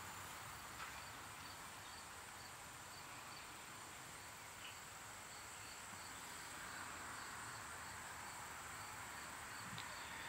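Quiet room tone: a steady faint hiss, with a faint high chirp repeating a few times a second.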